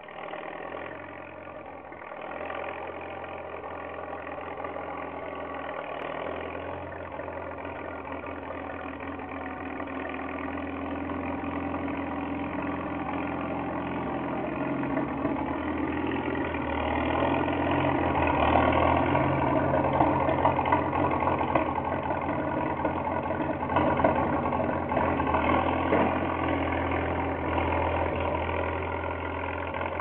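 Small farm tractor's engine running steadily while it pushes snow with its blade. It grows louder through the first half and is loudest in the second half as the tractor comes close.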